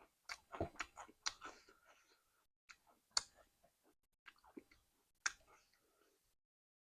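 Close-up mukbang chewing of curry and rice: a run of wet smacks and mouth clicks, with two sharper, louder clicks about three and five seconds in. The chewing stops about six seconds in.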